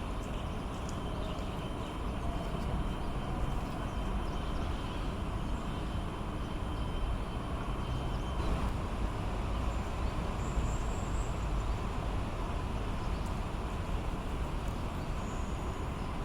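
Steady low rumble of distant road traffic, with a few faint high-pitched chirps about ten seconds in and again near the end.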